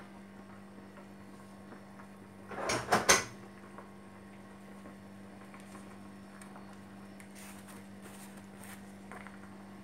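Kitchen background with a steady low hum, broken about three seconds in by a short clatter of two or three sharp knocks, like a kitchen drawer or cupboard being worked.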